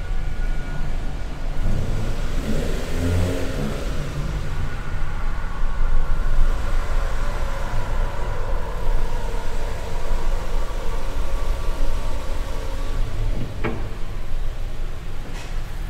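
A motor vehicle engine running with a steady low rumble, rising and falling in pitch a couple of seconds in; a brief sharp sound near the end.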